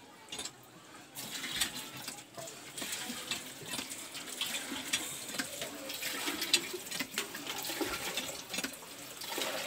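Water running from the well's tap and splashing, a steady gushing with irregular splashes.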